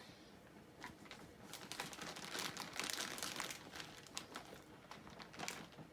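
Plastic toy packaging crinkling and rustling as it is handled and pulled open by hand, in irregular bursts, busiest in the middle.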